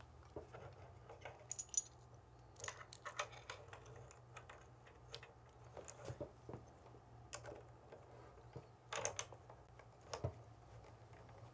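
Faint, scattered clicks and light metallic taps of a bicycle handlebar being handled in its stem clamp and a folding hex-key set working the stem's clamp bolts. The clicks bunch together about three seconds in and again about nine seconds in.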